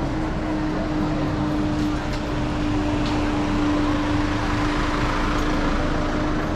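Street traffic: a vehicle engine with a steady hum, with traffic noise swelling about two-thirds of the way through.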